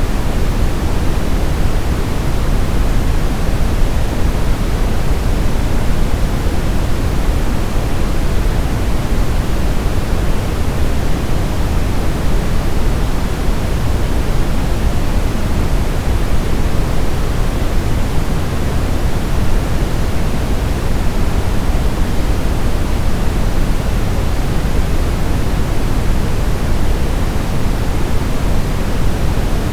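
Steady white noise for baby sleep: an even, unbroken rushing hiss, deeper and heavier in the low end than pure white noise, that does not change at all.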